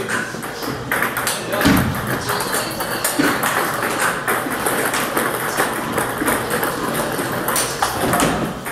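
Table tennis balls clicking off rackets and the table in a rally of serves and drives against backspin, with more ball strikes from neighbouring tables in the hall.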